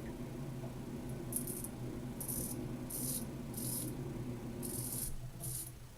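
Short, scratchy razor strokes through lathered stubble, repeating about every two-thirds of a second, over a steady low hum that stops about five seconds in.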